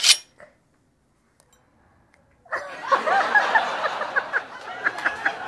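Two women laughing: a short breathy burst at the very start, then, after a moment of near silence, giggling and laughter that goes on to the end.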